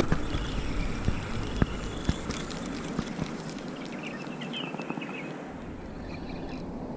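Outdoor ambience: a steady noise haze with scattered light clicks, and a faint, brief high chirping call about four seconds in.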